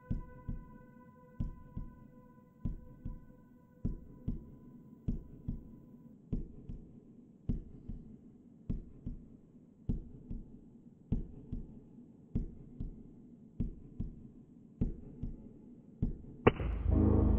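A heartbeat sound effect: low double thumps, lub-dub, a pair a little over once a second, evenly paced. A held musical tone fades out under it in the first few seconds, and shortly before the end a sharp hit brings in fuller music.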